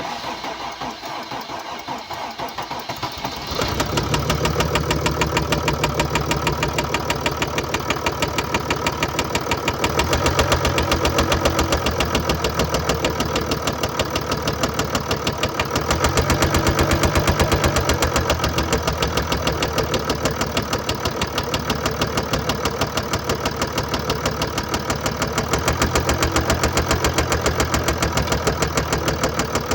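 Mercedes-Benz E350 4Matic's 3.0-litre V6 diesel engine starting up and then idling with a rapid, even clatter. The seller attributes the noise to a damaged bearing and a defective injector.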